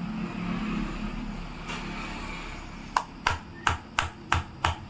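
Small hammer striking the glass back panel of an iPhone XS: six sharp knocks at about three a second, starting about three seconds in. The aftermarket glass takes the blows without breaking.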